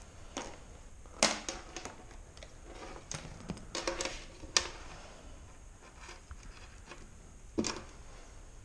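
A few sharp clicks and clatters of hands handling jumper leads and their connectors: one about a second in, a quick run of them a few seconds in, and one more near the end.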